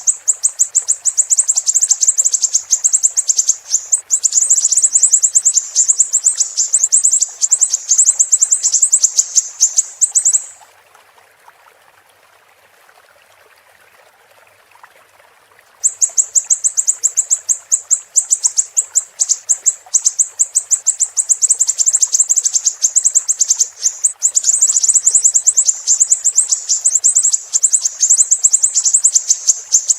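Siri-siri bird singing a fast, continuous run of very high-pitched chirps. It breaks off for about five seconds midway, leaving a faint hiss of running water, then starts again.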